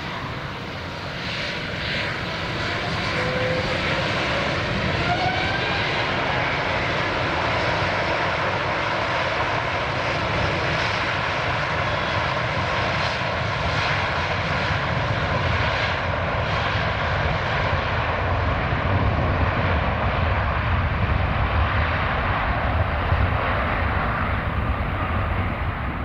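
Airbus A350's two Rolls-Royce Trent XWB turbofans spooling up to takeoff thrust. The engine whine rises in pitch over the first few seconds, then settles into a steady loud roar with deep rumble as the airliner rolls.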